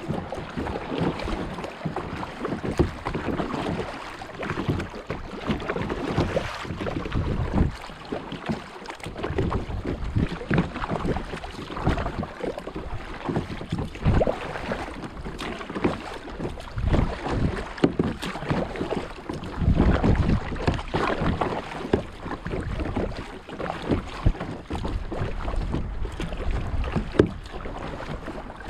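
Sea kayak on gentle waves: the paddle splashing in the water and small waves lapping against the hull at an irregular pace, with wind gusting on the microphone.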